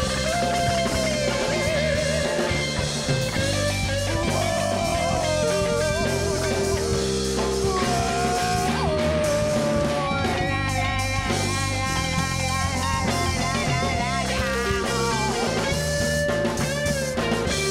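Rock band playing an instrumental passage: an electric guitar lead with bent, wavering notes over bass guitar and drum kit.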